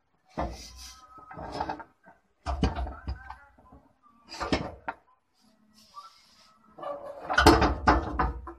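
Metal clunks and scrapes from a propeller shaft being handled and fitted under a vehicle during a center-bearing replacement, in about five bursts. The loudest and longest burst comes near the end.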